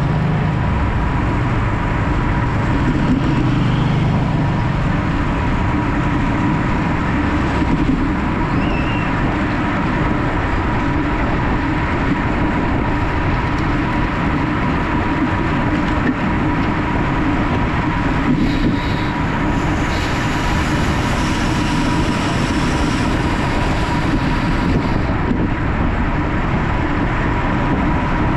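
Steady, loud wind rush on the microphone of a camera riding on a road bike at race speed.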